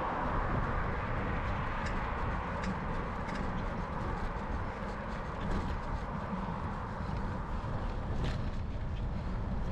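Steady rush of wind and road noise on a bicycle-mounted camera's microphone while cycling, with a few faint ticks.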